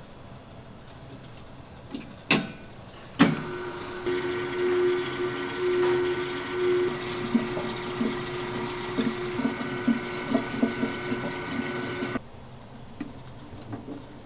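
Electric pasta machine switched on with a click, its motor running steadily with a constant hum and irregular knocking for about nine seconds, then cutting off suddenly.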